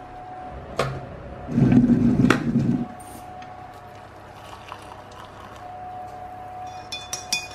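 Kitchen sounds of liquid being poured into a ceramic mug, with a loud rushing pour lasting over a second near the start. Sharp clicks and knocks of a spoon and crockery come through, with a quick cluster of clinks near the end.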